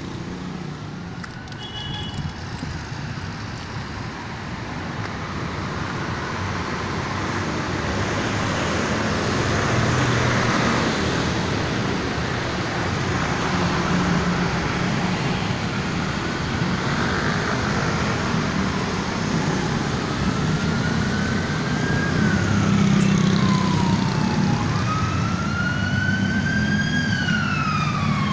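Street traffic from passing cars and motorcycles. About two-thirds of the way in, an emergency-vehicle siren starts wailing in slow rising and falling sweeps, and it grows louder toward the end.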